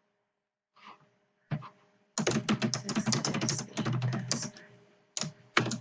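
Computer keyboard typing: a single key tap about a second and a half in, then a fast run of keystrokes that trails off, and a couple more taps near the end.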